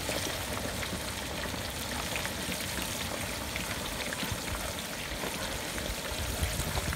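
Hot oil in an aluminium turkey-fryer pot bubbling and sizzling steadily around a whole turkey being lowered in, with a constant fine crackle.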